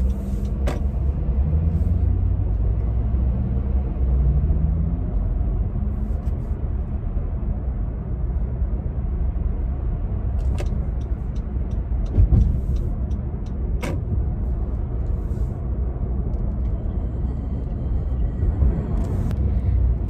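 Car cabin noise while driving: a steady low rumble of engine and road, with a few brief clicks and a soft knock near the middle.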